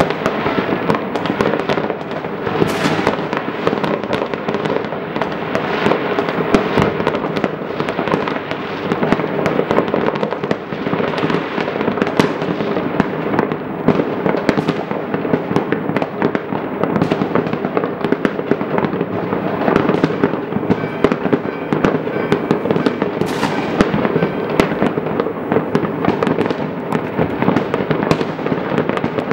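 Many fireworks going off at once over a wide area, heard as a dense, unbroken crackle of bangs and pops.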